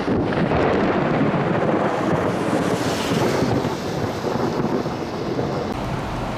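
Thunder from a close cloud-to-ground lightning strike: a sudden crack right at the start, then a loud rumble that slowly fades, with wind on the microphone.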